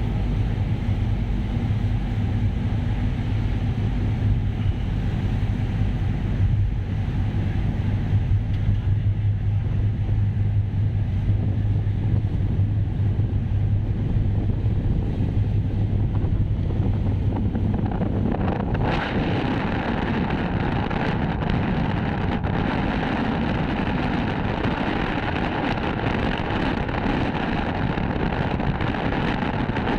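A ship's engine giving a steady low hum under strong wind buffeting the microphone. About two-thirds of the way through the hum drops out and a louder, brighter rush of wind noise takes over.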